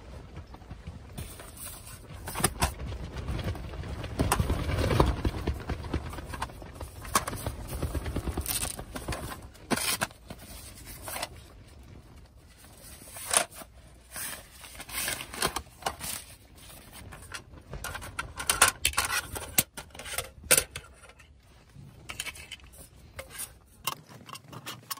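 Handling noises: scattered scrapes, clicks and knocks of objects being moved about, with a louder low rumble swelling from about three to nine seconds in.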